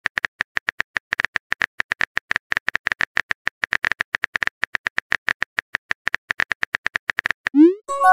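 Keyboard clicks from a texting app, one short tick per typed letter at several a second, as a message is typed. Near the end the clicks stop and a short rising whoosh sounds as the message is sent.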